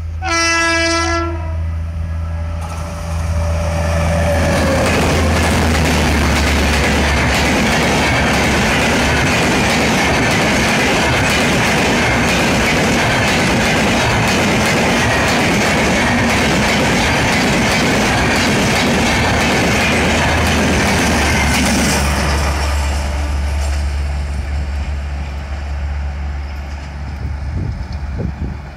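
WAP-7 electric locomotive sounds one horn blast of about a second as it approaches. About four seconds in, the Rajdhani Express rushes past at speed with a loud, steady din of wheels on rail and clickety-clack. The din cuts down fairly suddenly after the last coach, a bit past two-thirds of the way through, and then fades away.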